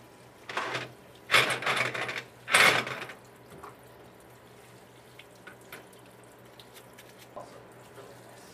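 Varsol solvent splashing in a parts-washer tub as parts are scrubbed under the brush and nozzle, in three bursts over the first three seconds, then faint small clinks of parts.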